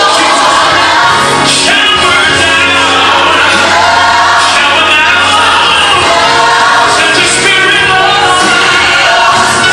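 Recorded gospel song with choir and lead vocals singing over a band, loud and continuous.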